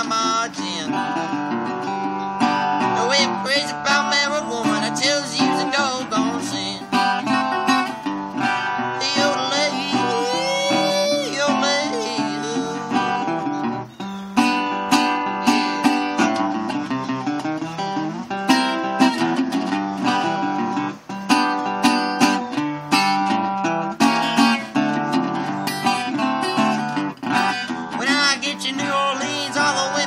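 Acoustic guitar being played, picked and strummed, a continuous instrumental passage with a steady run of notes.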